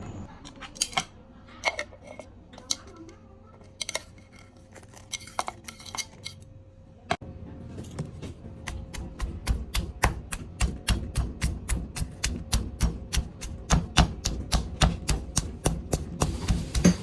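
Kitchen clinks and knocks as ingredients and utensils are handled, then from about eight seconds a steady pounding of about three strikes a second: a pestle crushing red chilies, garlic and salt in a mortar.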